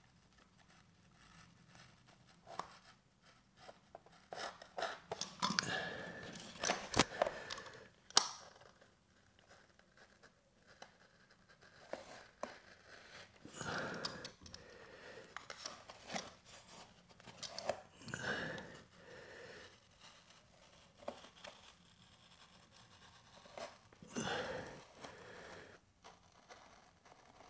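Utility knife cutting vinyl lino flooring along the edge: a series of short cutting strokes with pauses between, and two sharp clicks, the loudest sounds, about seven and eight seconds in.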